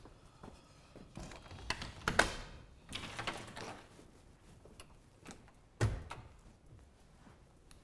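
A door's latch and handle clicking and rattling as it is opened, then the door shutting with a single thud about six seconds in.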